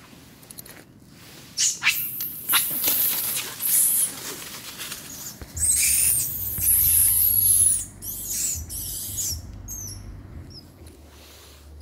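Long-tailed macaque giving a string of high-pitched squeaks and squeals that glide up and down, loudest a little past halfway. Rustling runs underneath, and a low rumble sets in on the microphone from about halfway.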